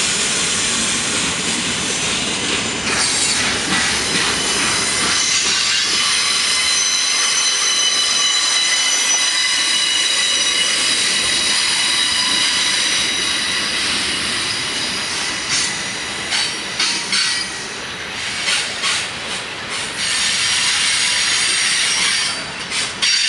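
Canadian National freight train of hoppers, boxcars and tank cars rolling past close by, its wheels squealing against the rails in several steady high tones over the rumble of the cars. A run of sharp clicks from wheels crossing rail joints comes past the middle.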